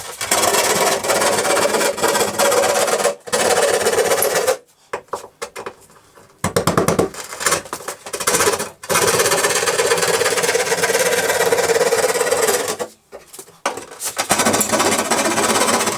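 Saw cutting through half-inch drywall, a rasping scrape in long runs of strokes with brief pauses between them.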